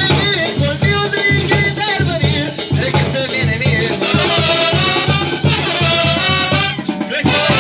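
Mexican brass band (banda) playing live: trumpets and sousaphone over bass drum, snare and cymbals, with a steady, evenly spaced low beat. The horns hold chords about four seconds in, and the music breaks off briefly just before the end.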